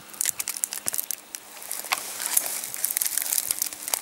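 Crackling and rustling of dry vegetation: a run of irregular sharp crackles and crunches.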